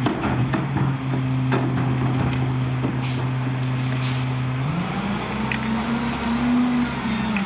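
Garbage truck engine running steadily, then revving up about two-thirds of the way through, holding the higher speed and dropping back near the end. Two short hisses of air come in the middle, with scattered clanks.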